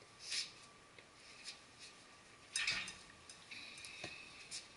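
Handling noise as a person crouches to place treats on the floor next to a dog: small clicks and rustles, with a louder rustle about two and a half seconds in.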